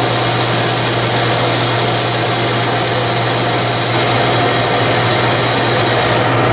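Homemade thickness (drum) sander and shop vac running together: a loud, steady motor hum under a dense hiss. The highest part of the hiss drops away about four seconds in while the hum carries on.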